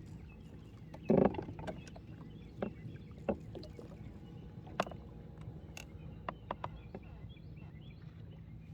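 Small knocks and sharp clicks of gear being handled aboard a fishing boat over a steady low rumble, with one louder knock about a second in.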